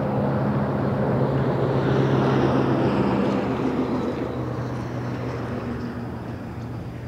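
Low, steady diesel-engine hum from a freight train's locomotives, with a rushing engine noise that swells about two to three seconds in and then fades.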